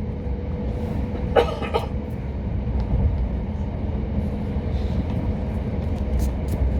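Southern Class 377 Electrostar electric train heard from inside the coach while running, a steady low rumble with a faint steady hum. A short vocal sound, like a cough, comes about a second and a half in.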